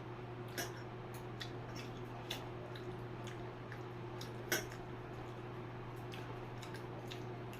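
Soft clicks and wet squishes of a person eating a rice meal by hand and chewing, scattered irregularly with one sharper click about four and a half seconds in, over a steady low hum.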